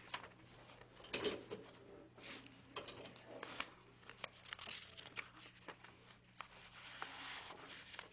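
Loose sheets of paper rustling and crinkling as they are shuffled and turned over, with scattered soft taps and one longer rustle near the end. A steady low electrical hum runs underneath.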